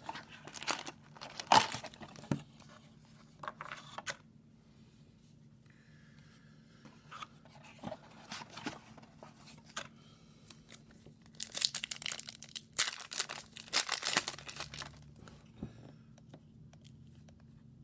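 Foil wrapper of a hockey card pack crinkling and tearing open in short rustling bouts. The loudest, densest tearing comes from about eleven to fifteen seconds in.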